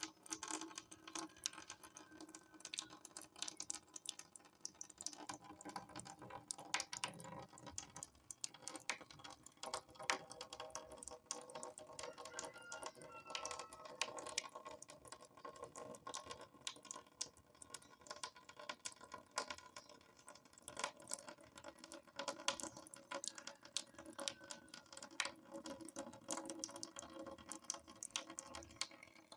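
Faint water drips and small splashes pattering at an uneven rate, many small drops landing in quick irregular succession.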